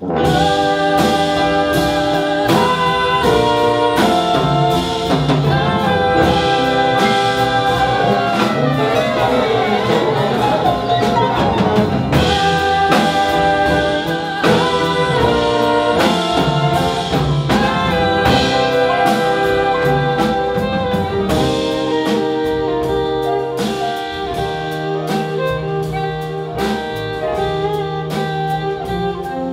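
Live jazz ensemble playing loudly: trumpet and trombone over drums and double bass, with guitar and violin in the band. The whole band comes in at once at the start.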